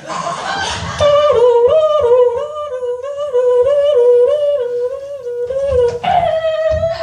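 A person imitating a siren with their voice: a hummed tone that wavers up and down about twice a second, after a rough noisy burst in the first second.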